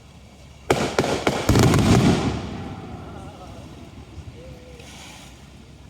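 Aerial fireworks: a quick series of sharp bangs starting just under a second in, then a louder burst at about a second and a half with crackling that fades away over the following second.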